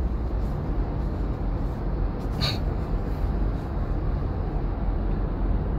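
Steady low road rumble of a moving car, heard from inside the cabin, with a short hiss about two and a half seconds in.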